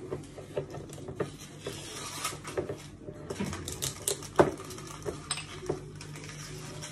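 Irregular clicks and taps of a small drink bottle being handled and its screw cap twisted open, the sharpest click about four seconds in, over a faint steady low hum.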